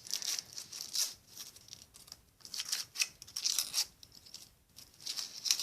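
Foil wrapper of a Kinder Surprise chocolate egg being torn and peeled off by hand, crinkling and rustling in irregular bursts.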